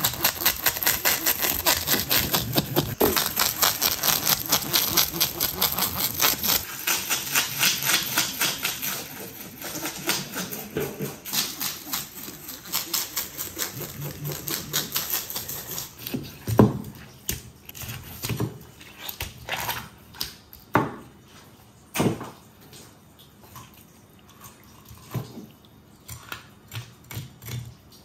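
Rapid, regular scraping strokes of a fish scaler stripping the scales off a red sea bream on a wooden cutting board. About two-thirds of the way through, the scraping stops and gives way to scattered single knocks on the board.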